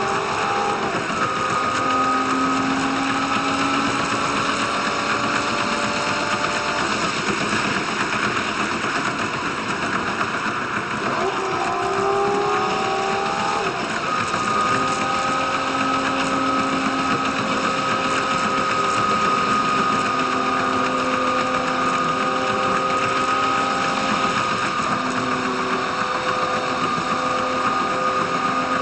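Diesel railcar running along the line: a steady rumble and hiss of the running gear under a drone of engine and transmission tones. The tones slide to new pitches about a second in and again around twelve seconds in, then hold steady.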